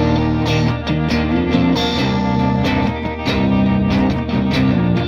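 Background music: a guitar-led instrumental with a steady beat.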